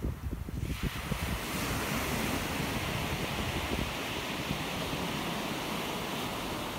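Wind buffeting the microphone for the first moment, then, from about a second in, the steady hiss of surf breaking and washing up a shingle beach, with wind rumble underneath.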